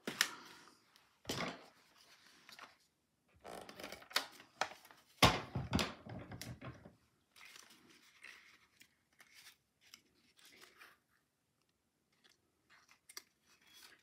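Cardstock being handled, folded and pressed together by hand, in short scattered rustles, scrapes and sharp taps. The loudest snap comes about five seconds in, and there is a quiet stretch near the end.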